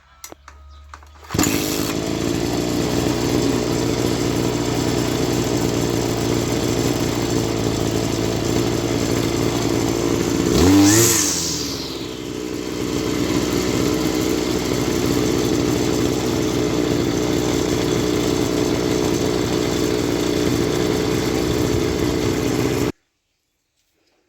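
Petrol brush cutter engine running steadily. It comes in abruptly about a second in and is revved once about halfway through, the pitch rising sharply and falling back. It cuts off abruptly near the end.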